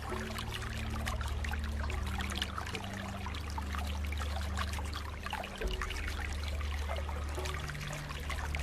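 Water flowing steadily with constant small splashes over a low rumble.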